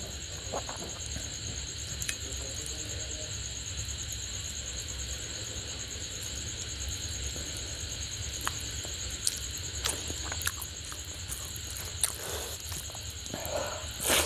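Fingers kneading curry-soaked turmeric rice and picking apart a whole fried fish on a plate: soft scattered wet clicks and squelches, with a few louder ones as a mouthful is taken near the end. A steady high whine and hiss run underneath.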